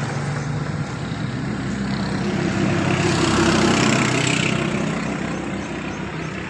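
An engine runs steadily. A motor vehicle passes close by, growing louder to a peak about three and a half seconds in and then fading.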